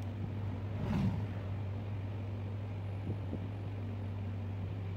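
A steady low hum, with a short burst of handling noise about a second in and a couple of light taps around three seconds, as small parts are handled on a workbench.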